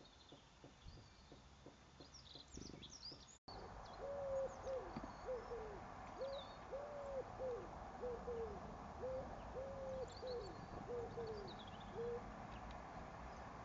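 A bird calling with a run of about a dozen short, low hooting notes, each rising and falling in pitch, starting just after an abrupt break a few seconds in. Faint high chirps of small birds sound throughout.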